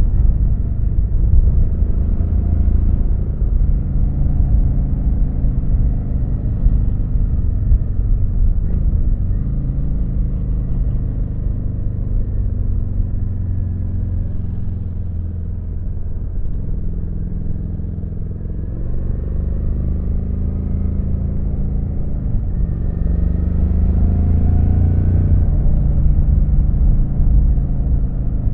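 Kawasaki VN900's V-twin engine running under way, its pitch rising and falling several times with throttle and gear changes, easing off around the middle and revving up again about three quarters of the way through.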